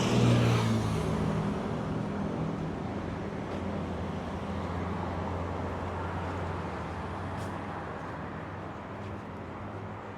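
Street traffic: a motor vehicle's engine passes close by at the start and fades away, leaving a steady low hum of road traffic.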